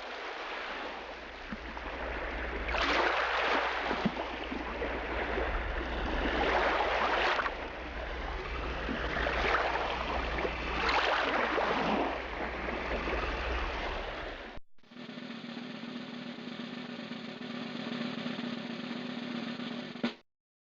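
Roar of a waterfall, a dense rushing noise over a deep rumble that swells and eases several times. Near the three-quarter mark it cuts to a steadier rushing sound with a low hum running through it.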